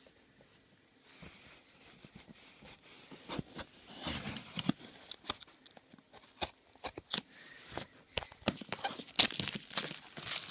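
Plastic packaging being handled, crinkling and tearing, with scattered clicks and rustles that start sparse and grow busier and louder from about four seconds in.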